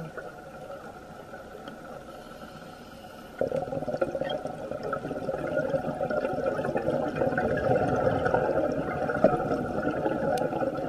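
Underwater recording of scuba regulator bubbles gurgling. It is quieter at first and gets suddenly louder and denser about three and a half seconds in.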